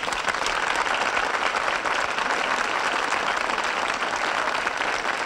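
Studio audience applauding, a dense, steady clapping.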